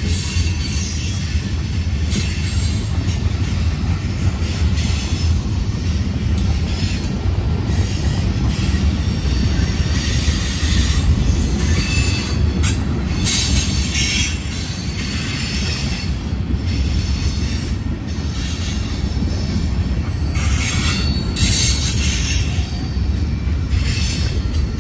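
Mixed freight cars (covered hoppers, tank cars and boxcars) rolling past on the rails: a steady low rumble of steel wheels on track, with high-pitched wheel squeals coming and going several times.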